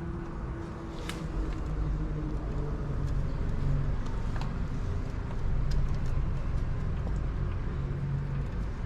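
A steady low rumble with a faint hum, and a few light clicks, one sharp click about a second in.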